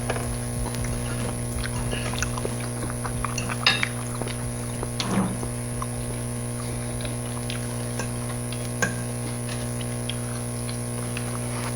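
Eating at a table: scattered small clicks and clinks of cutlery and dishes and mouth noises, with a few louder ones, over a steady electrical hum.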